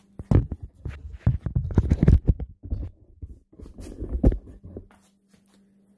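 Handling noise from a phone camera being fitted onto a tripod: a run of irregular knocks, rubs and clicks right on the microphone, lasting about four seconds.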